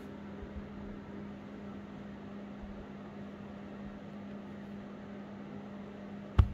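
A steady low hum over an even hiss of room noise, with one sharp knock near the end.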